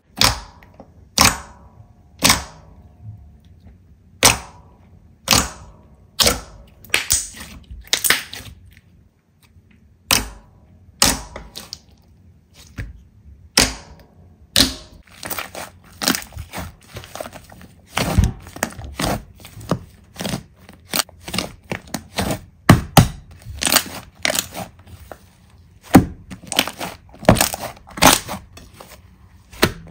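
Slime being pressed and squeezed by hand, giving off a string of sharp crackling pops. They come about one a second at first and grow closer together in the second half.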